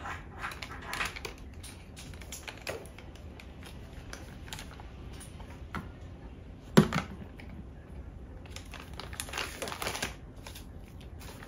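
Thin plastic blind-bag wrapper being handled, pulled open and unfolded by hand: many short, irregular crinkles and rustles, with one brief louder sound about seven seconds in.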